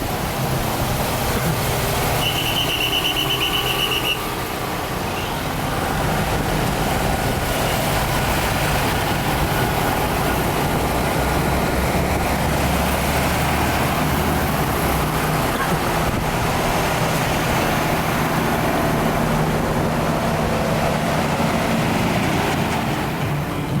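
A large road vehicle's engine running steadily with traffic rumble. A brief high, rapidly pulsing chirp is heard about two seconds in.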